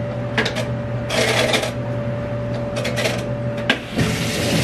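Clothes and hangers being handled: fabric rustling and scattered clicks, with a sharp click near the end, over a steady machine hum. Just before the end the hum drops and a rush like running water starts.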